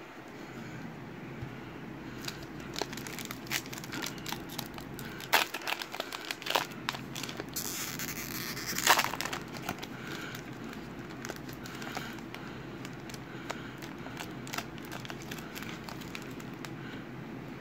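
Foil trading-card pack (2020 Panini Legacy football) crinkling and crackling in the hands as it is worked open, with the loudest, densest stretch about eight to nine seconds in and only light crinkles after.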